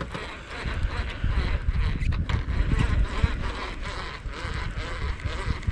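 Wind buffeting the microphone, with water lapping against a small boat's hull.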